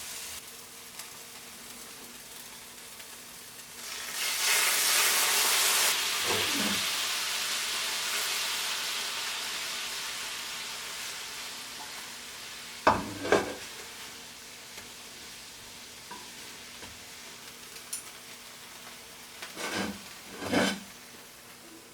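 Pork tenderloin slices frying in olive oil in a frying pan, sizzling steadily. About four seconds in the sizzle surges loudly and then slowly dies down. A few short knocks of a utensil against the pan follow, a pair past the middle and two more near the end.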